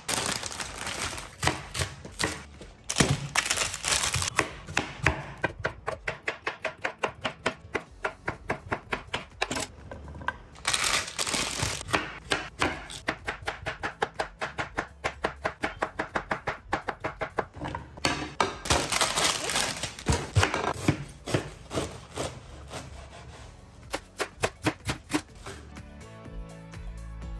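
Chef's knife chopping vegetables on a wooden cutting board: quick, regular knocks of the blade cutting through onto the board, several a second, in runs with short pauses between.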